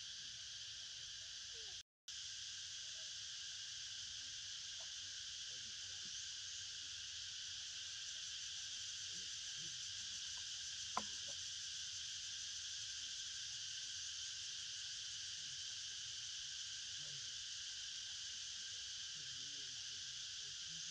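Steady insect chorus, an even high-pitched drone in several bands, that cuts out for a moment about two seconds in; a single sharp click about halfway through.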